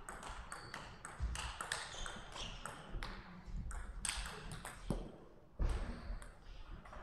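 Table tennis rally: the plastic ball clicks sharply off the paddles and the table in quick succession. The clicks die down near the end, followed by a single loud low thud.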